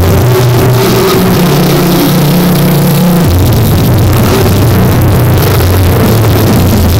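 Tattoo machine buzzing steadily, loud and close, as it works ink into skin.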